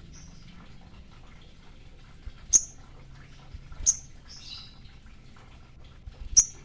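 A sogon, in breeding condition, calling at a rival with short, sharp, very high chips: three single notes about a second and a half apart, with a brief twittering phrase just after the second.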